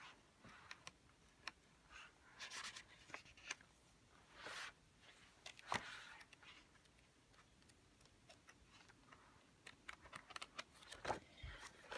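Faint paper rustling and a few light clicks from a printed tutorial book being handled, its pages turned or the book shifted, with one sharper click partway through.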